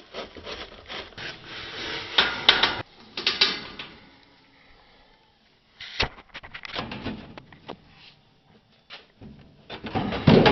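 Sheet-metal cabinet of a window air conditioner being worked off its chassis by hand: scraping and rubbing, a sharp knock about six seconds in followed by a run of small clicks, and a louder scrape and clunk near the end.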